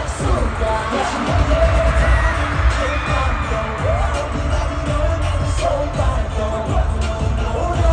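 Live K-pop concert music through a stadium PA: a pop track with a heavy, pulsing bass beat and a male lead vocal sung into a handheld microphone.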